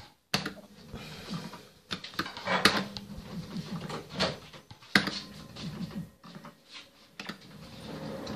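Deal or No Deal The Crazy Chair fruit machine being played: button presses and reels spinning and stopping make a string of sharp clicks and clunks, the loudest about two and a half and five seconds in, over the machine's electronic tones.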